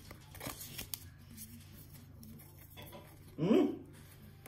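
Faint handling of a stack of Pokémon trading cards: cards sliding and flicking against one another, with a few light clicks. A short wordless vocal sound comes about three and a half seconds in.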